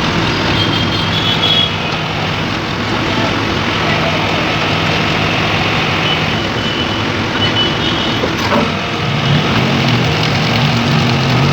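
Excavator-mounted hydraulic vibratory hammer driving steel sheet piles, with the excavator's diesel engine: a loud, steady machine drone, with a few brief high-pitched tones about a second in and again midway.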